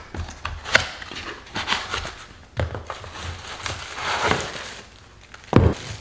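Unboxing: a cardboard product box being opened, with cardboard and plastic wrapping rustling and crinkling and small knocks of things handled on a countertop, and a heavier thump about five and a half seconds in.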